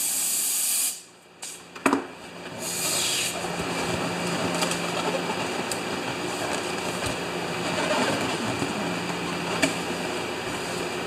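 Gas hissing from a red inflator nozzle into a latex balloon, cutting off about a second in; a sharp click and a second short hiss follow. From about three and a half seconds a steady mechanical whir with a faint low hum takes over.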